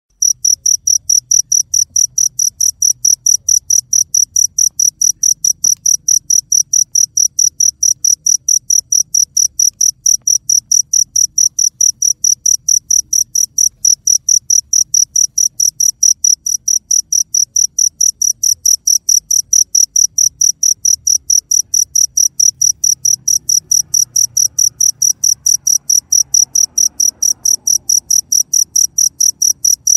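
Cricket chirping steadily, a high chirp repeated about three times a second.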